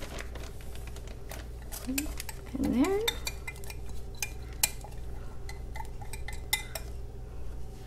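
Wire whisk scraping and tapping against the inside of a glass Pyrex measuring cup as thick marinade is scraped out into a plastic bag: a string of small clicks and clinks. A short rising tone sounds about three seconds in.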